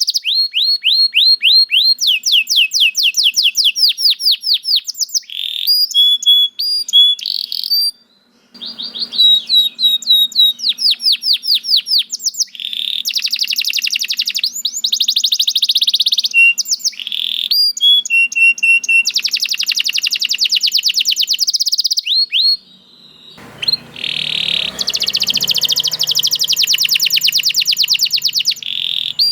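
Domestic canary singing a long, fast song: quick trills of repeated sweeping notes alternate with buzzy rolls and short whistled notes, with a brief pause about eight seconds in.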